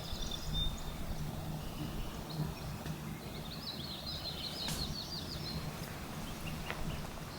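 A small songbird singing a quick run of short, repeated high chirps about halfway through, with a few fainter notes near the start, over a steady low hum.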